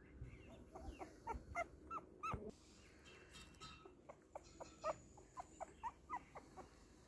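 Young puppies whimpering in short, high squeaks, in two quick runs: one about a second in and another about four and a half seconds in.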